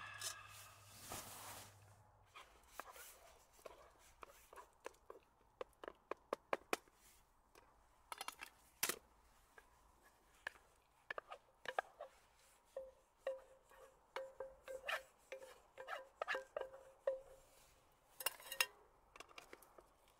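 A metal mug set down with a brief ring, then a wooden spatula tapping and scraping in a camp cooking pot as bacon and tomato are tipped in and stirred into scrambled eggs: many small, separate clicks and knocks.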